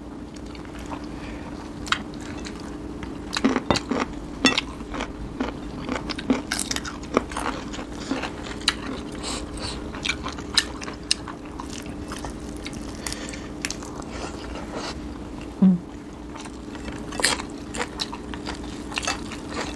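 Close-up eating sounds: chewing and crisp biting of raw vegetables and green mango, scattered wet clicks and crunches, over a faint steady hum.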